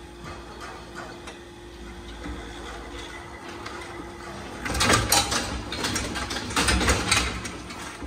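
Steel hoof-trimming crate holding a cow, rattling and clanking over a steady low hum. About five seconds in there is a loud, dense run of knocks and clatter lasting a couple of seconds.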